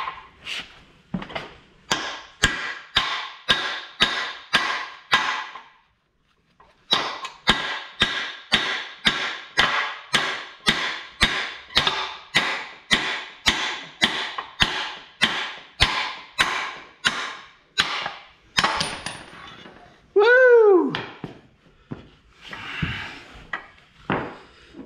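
Hammer blows on a steel punch held in vise grips, driving a rusted hinge pin out of a Meyer C-8 snowplow's moldboard bracket. The metallic strikes come steadily at about two a second, each with a short ring. They pause briefly about six seconds in and stop about eighteen seconds in. About twenty seconds in there is a short tone that rises and falls.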